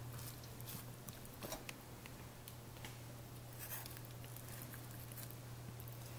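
Faint taps and bumps of peeled potatoes being set and pressed into a slow-cooker crock around a roast, over a steady low hum.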